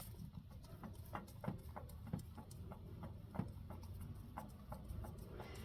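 Engine oil dripping from a just-loosened oil filter, a quiet, irregular patter of drops, several a second.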